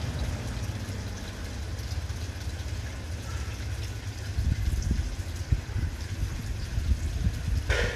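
Low, uneven rumbling noise that grows louder and gustier from about halfway, with a short sharper sound right at the end.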